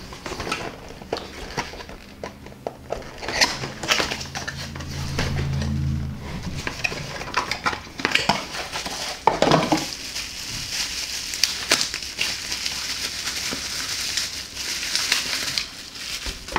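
Hands opening a small cardboard box and pulling out a pump's power supply: scattered taps and clicks of cardboard and plastic, with crinkling of plastic wrapping in two stretches in the second half. A low steady hum runs for about the first six seconds.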